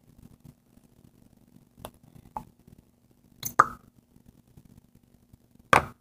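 Plastic squeeze bottle of white glue being handled and squeezed out: two faint clicks, then a sharp plop about three and a half seconds in, and a louder short burst just before the end.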